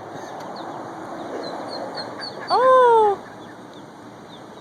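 Ducklings peeping, a steady run of short high chirps several a second.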